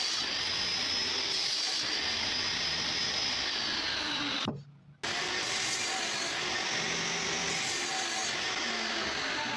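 Table saw running and cutting wood, a steady rush with a high blade whine that sags and recovers in pitch. The sound drops out suddenly for about half a second near the middle, then resumes.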